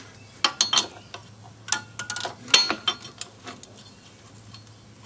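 Pliers clicking and clinking against the steel hardware of a drum brake as the brake shoe springs are worked loose: a string of sharp metal clicks, some with a brief ring, bunched in the first three and a half seconds.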